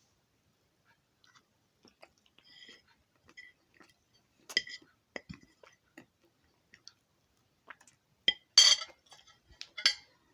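A person chewing a mouthful of lasagna, with scattered small mouth clicks. A few sharper clinks come about four and a half seconds in and again near the end, the loudest of them.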